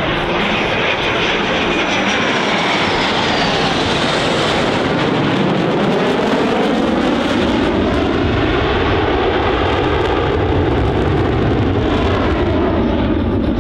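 Two EA-18G Growlers flying the dual Cobra: the jet roar of their General Electric F414 turbofan engines, loud and steady, its tone slowly sweeping up and down as the jets pass.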